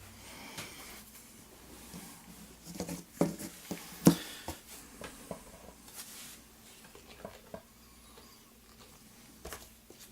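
Scattered clicks and light knocks of a lock cylinder and small tools being handled on a work surface, the two loudest about three and four seconds in.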